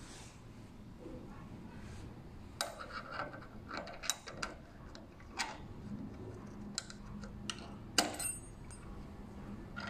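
Scattered small metallic clicks and clinks of an Allen key and the steel fixed blade being worked into the geared pivot of an electric pruning shear head, the sharpest click about eight seconds in.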